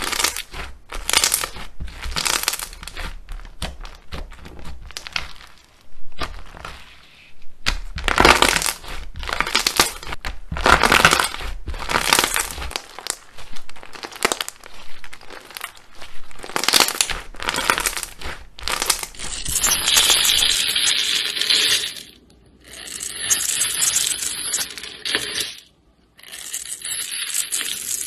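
Hands squeezing and kneading a fluffy white slime with pink bits, giving dense crackling, crinkling squelches in short bursts. About twenty seconds in, a different, hissier and higher crackling takes over in a few stretches.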